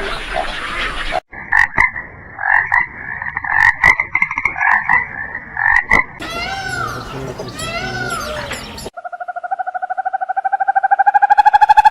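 Frogs croaking in short, repeated calls. These give way to a few arched calls that rise and fall in pitch, and then to a fast, pulsing trill that grows louder near the end.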